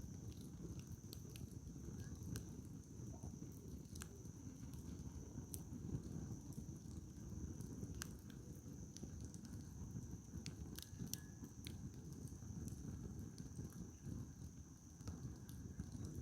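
Firewood burning in an open campfire: faint crackling with sharp, irregular pops over a low rumble.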